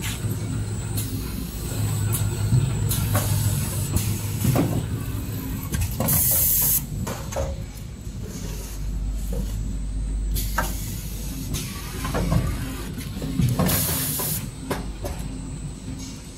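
XY GU 27B two-head napkin packing machine running: a steady mechanical hum with scattered clacks and knocks from its moving parts. Two loud bursts of compressed-air hiss from its pneumatic cylinders come about six and fourteen seconds in.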